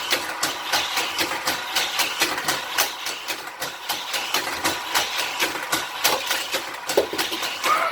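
Battery-powered motorized boosters of a Hot Wheels Corkscrew Crash track set running, a small-motor whir with a fast, uneven plastic rattle.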